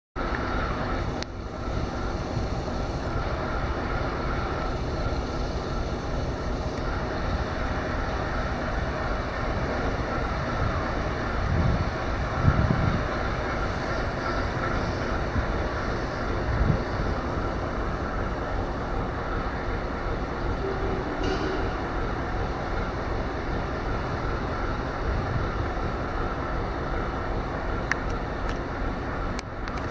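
Railway noise from a diesel shunting locomotive running steadily on the station tracks, with a few short louder knocks near the middle.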